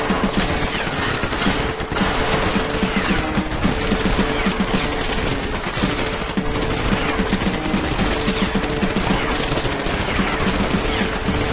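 Battle sound effects: continuous, dense gunfire with machine-gun fire, rattling on without a break.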